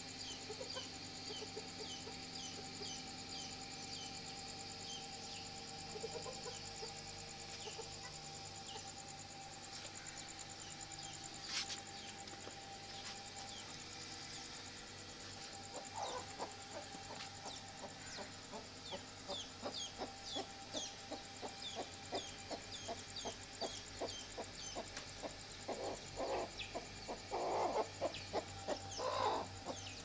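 Golden heavy buff hens clucking: a run of short clucks about two a second that starts about halfway through and grows louder near the end. Faint high chirping runs through most of it, over a steady low hum.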